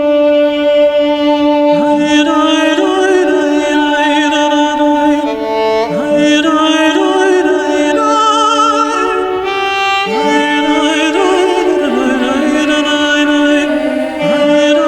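Background music: a slow melody of long held notes, some with a wavering vibrato.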